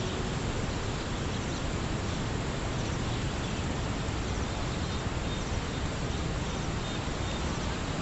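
Steady outdoor ambience: an even rushing noise, strongest in the low end, with faint short high chirps now and then.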